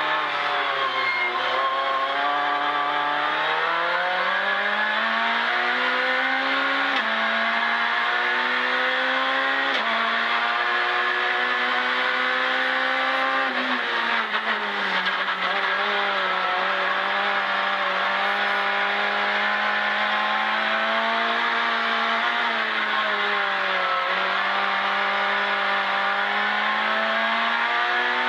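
Citroën C2 R2 Max rally car's four-cylinder engine, heard from inside the cabin, driven hard. The revs climb and drop sharply at each gear change, fall away around halfway as it slows, then hold fairly steady and build again near the end.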